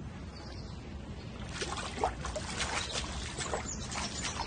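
Trickling, splashing water, with a steady wash and many small splashes from about a second and a half in.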